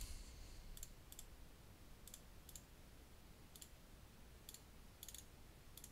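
Faint, sharp clicks, about eight, spaced irregularly over a near-silent background, one for each key pressed while "Rem 700" is typed letter by letter on an on-screen keyboard.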